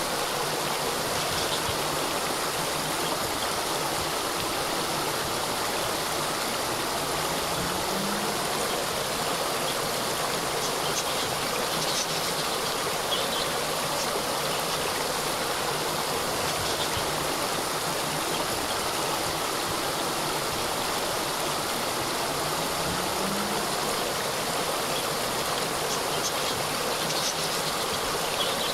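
Small cascade of water running steadily, an even rushing and splashing that does not let up. A few faint short high chirps sound now and then above it.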